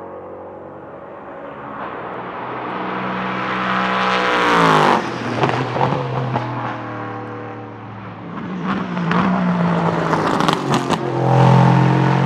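An LMP3 prototype's Nissan VK56 5.6-litre V8 at speed. It climbs in pitch as it approaches, passes about five seconds in with a sharp drop in pitch, then its note rises and falls again with several sharp pops before it grows loud once more near the end.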